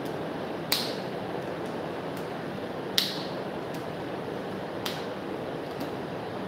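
A few sharp clicks or taps over a steady background hiss: two louder clicks about two seconds apart, then fainter ones.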